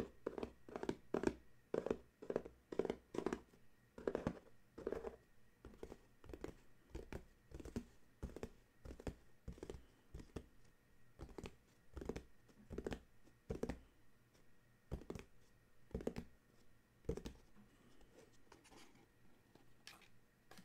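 Fingertips tapping on a small cardboard box, a quick uneven run of soft taps that thins out and stops about three-quarters of the way through.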